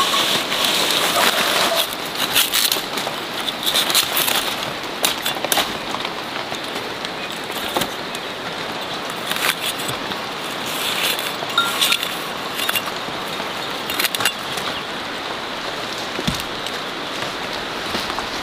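Hands working over freshly dug ginger rhizomes, pulling off roots and soil: scattered crackling and rustling over a steady background hiss.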